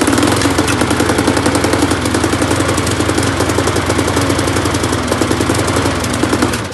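Briggs & Stratton lawnmower engine running steadily with a fast even firing beat, then stopping near the end. It has a freshly replaced carburettor gasket and diaphragm, and it is sitting loose on a mower deck it is not bolted to, which the owner blames for clunking.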